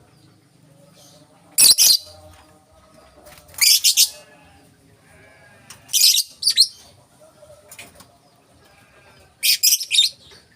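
Lovebird giving harsh, high-pitched screeching calls in four short bursts, a few seconds apart.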